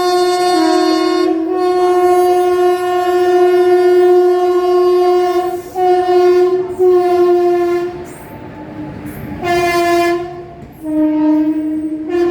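Air horn of an Indian Railways WAP4 electric locomotive sounding. A long blast of about six seconds is broken briefly twice, then after a pause come a short blast and then a lower-toned blast that switches to a higher tone near the end.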